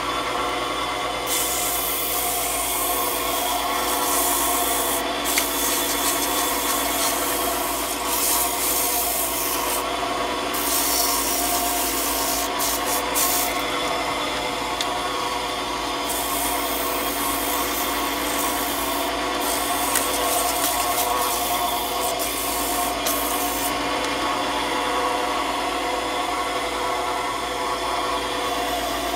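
Wood lathe running steadily while abrasive paper is held against the spinning wooden spinning-wheel bobbin, giving a rubbing hiss that comes and goes with each pass. The hiss fades in the last few seconds while the lathe keeps running.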